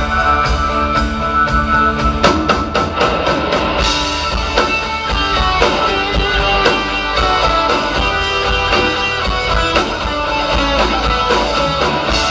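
Live rock band playing the instrumental intro of a song: electric guitars over a drum kit, with no singing yet. A quick run of drum hits comes about two seconds in.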